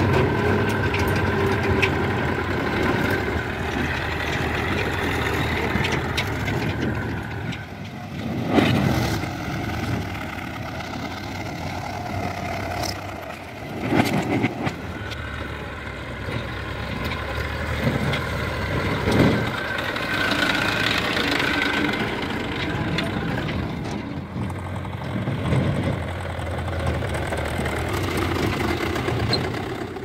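Diesel farm tractor engine running steadily as the tractor drives, with a few brief louder surges.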